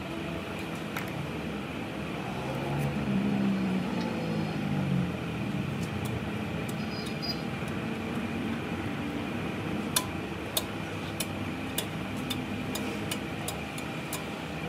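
Steady workshop hum, then from about two-thirds of the way through a run of sharp small metallic clicks, roughly one to two a second, as a roller bearing is worked by hand into its bore in a differential housing.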